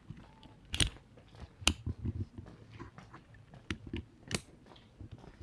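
Footsteps on a paved street: four sharp clacks at uneven spacing, with softer low thuds between them.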